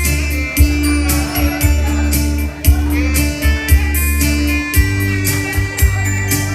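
Instrumental backing music with guitar, a sustained bass line and a steady drum beat.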